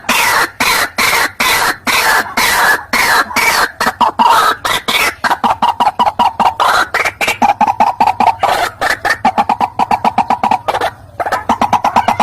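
White-breasted waterhen (ruak-ruak) calling as a trapping lure. Harsh, croaking notes come at about two to three a second, then speed up about five seconds in to a rapid run of shorter notes. There is a brief break near the end.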